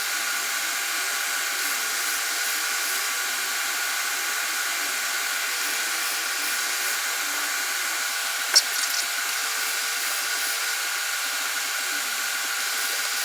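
Steady rushing hiss with a faint steady hum underneath, like a fan or blower running, and a single sharp click about eight and a half seconds in.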